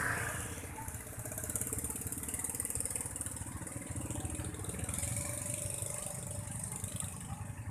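Motor scooter engine idling steadily.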